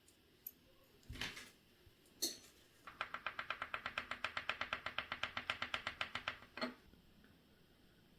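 Small mechanical clicks at a watchmaker's bench: a rustle and a single click, then an even, rapid run of clicks at about ten a second for about three and a half seconds, ending in one sharper click.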